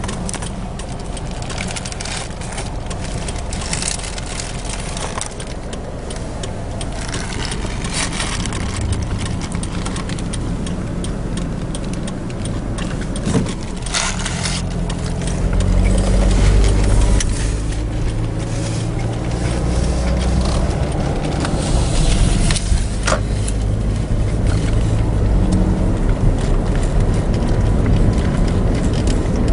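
Car cabin noise: the engine's low rumble, quieter at first while the car waits, then growing louder about halfway through as it pulls away and drives on, with a few short clicks and rattles inside the car.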